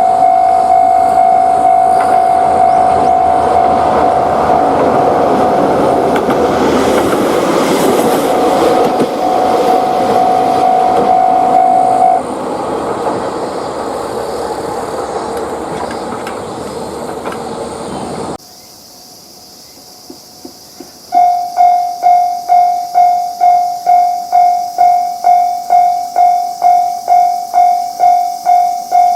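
Japanese level crossing: a train rumbles past while the crossing's warning bell rings, the bell stopping about twelve seconds in as the train noise runs on. After a sudden cut and a few clicks, another crossing's electronic warning bell starts its rapid 'kan-kan' ringing, about two strikes a second.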